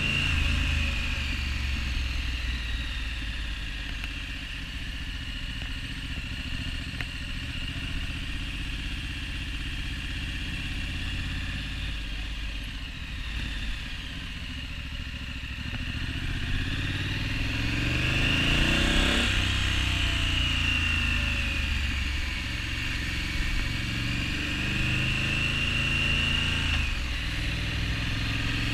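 Triumph Street Scrambler 900's water-cooled parallel-twin engine running through a Vance & Hines slip-on silencer as the bike is ridden on the road. The engine note rises and falls with the throttle and is loudest about two-thirds of the way through.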